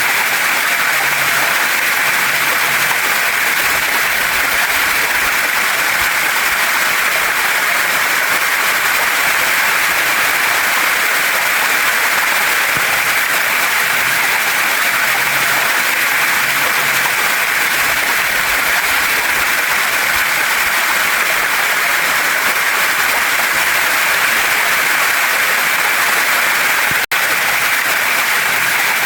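Waterfall and mountain stream rushing steadily over rocks, a loud, even hiss of falling and flowing water. A split-second gap breaks it once near the end.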